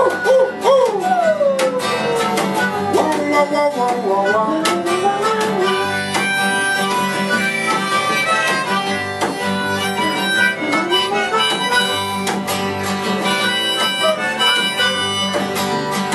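Instrumental break of a live acoustic band: a harmonica-like reed lead plays a melody with bent, sliding notes over strummed acoustic guitar and upright bass.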